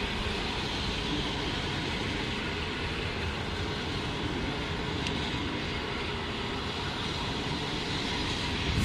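PKP Intercity passenger coaches rolling past on the track, a steady noise of wheels on rails. A brief thump comes at the very end.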